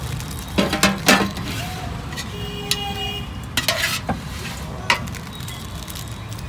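A metal ladle clinks and scrapes against a steel curry pot and into a foil pouch as potato curry is served. There is a quick cluster of clattering strikes about half a second in, more near the middle and one about five seconds in, over a steady low background rumble.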